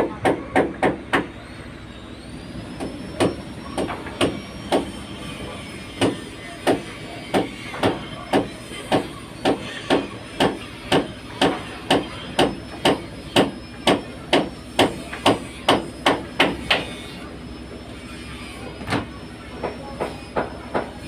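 Hammer blows from repair work on the fishing boats, coming in a steady run of about two strikes a second. Near the end they stop for a couple of seconds, then start again.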